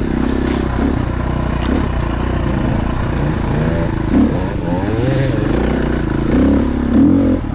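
Dirt bike engine running under varying throttle, its revs rising and falling again and again, with a few louder bursts of throttle.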